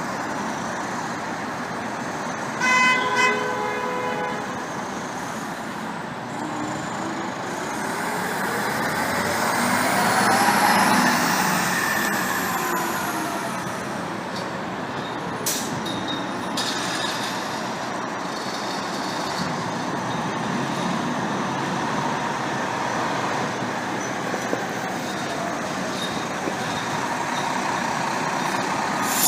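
Fire department ladder truck running in street traffic. A horn sounds twice, briefly, about three seconds in, and around ten seconds in the noise swells as a vehicle passes, its pitch rising then falling.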